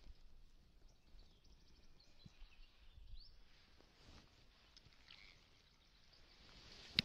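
Near silence: faint open-air ambience with a few faint, short bird chirps, and one sharp click at the very end.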